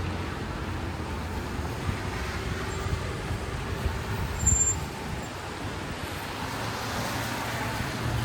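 Road traffic: vehicles passing on a town street, a steady rumble of engines and tyres, with a brief louder knock about four and a half seconds in.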